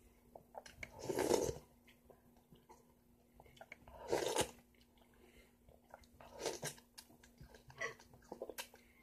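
Wet bites and slurps of ripe yellow honeydew melon eaten from the rind: three loud juicy mouthfuls a few seconds apart, the first the loudest, with small wet mouth clicks between them.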